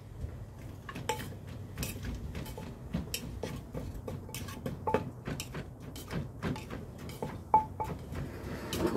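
Wooden pestle pounding in a terracotta mortar: irregular dull knocks, a few each second, with occasional higher clinks.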